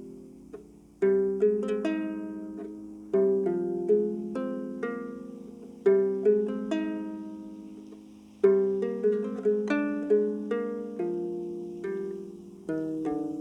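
Double diatonic harp plucked by hand in slow phrases of single notes and chords, each left to ring and fade. The strongest chords come about a second in, then around three, six and eight seconds in.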